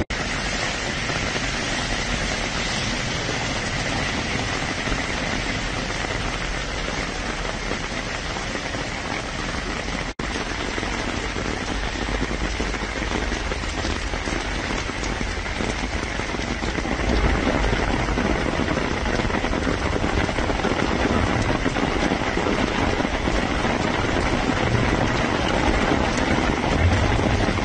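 Heavy rain falling on flooded, hail-strewn streets, a steady hiss. It breaks off for an instant about ten seconds in and grows a little louder in the second half.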